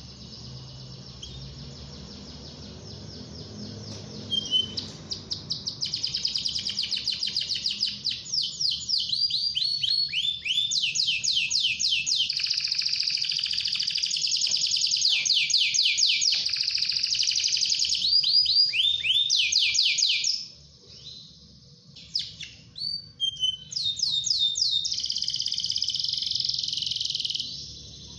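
Domestic canary singing a long, fast trilling song of rapid repeated high notes, starting about four seconds in. The song breaks off for a couple of seconds and then resumes before stopping near the end.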